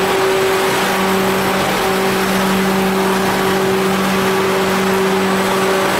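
Caramel popcorn processing machinery running: a steady mechanical hum with a constant drone over an even rushing noise.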